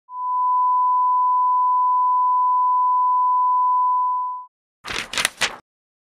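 A steady 1 kHz sine test tone held for about four and a half seconds, then cut off. A few short scratchy noises follow near the end.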